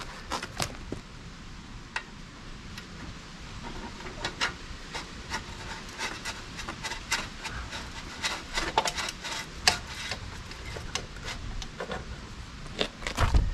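Titanium slip-on exhaust silencer being worked by hand onto a motorcycle's exhaust link pipe: repeated metal-on-metal scraping and clicking, busiest in the middle.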